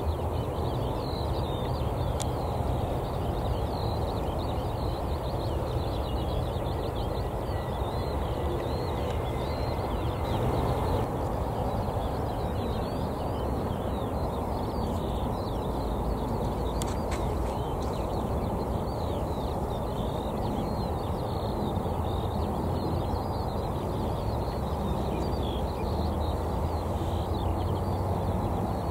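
Small birds chirping continuously over a steady low rumble.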